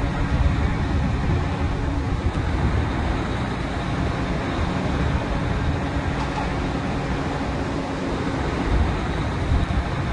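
Steady machinery noise of a drilling rig at work, engines and drive motors running with a constant low hum and a heavy rumble underneath.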